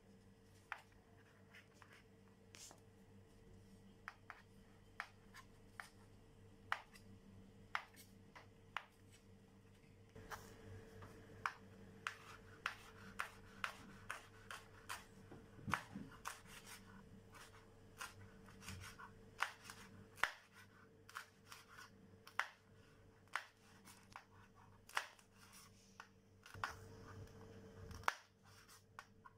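Kitchen knife cutting on a wooden chopping board: sharp taps of the blade striking the board, about one a second at first, then quicker and more frequent from about ten seconds in as potato is cubed and a green chilli is sliced.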